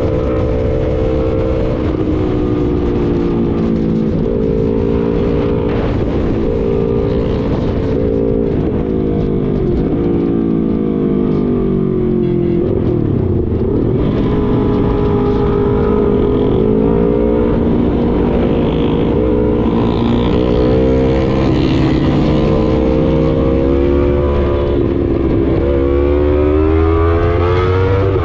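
Motorcycle engine running on the move, its pitch rising and falling as the throttle opens and closes, over a steady rush of wind and road noise that grows somewhat heavier in the second half.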